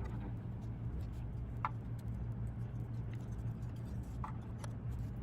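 Faint steady low hum with a few small clicks and two short squeaks, about two seconds and four seconds in.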